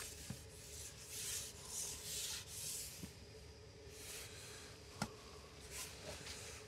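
Faint rustling and rubbing: a run of soft swishes about one to three seconds in, and a single sharp click about five seconds in.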